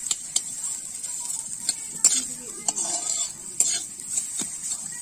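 Steel spatula scraping and clinking against a wok at irregular moments as soybean chunks are stirred, over a steady high sizzle of frying oil.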